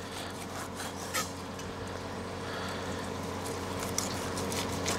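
Knife sawing through thick slices of cooked, skin-fried lamb on a chopping board: a soft rubbing, scraping sound with a couple of light knocks.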